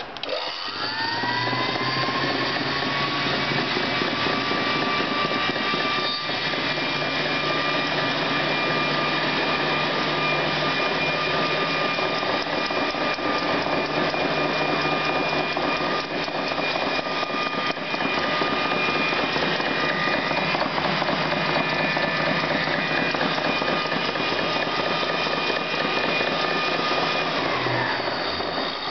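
Electric motor of a spinning painting machine spinning up within about a second, then running with a steady whine over a rushing noise, and winding down near the end.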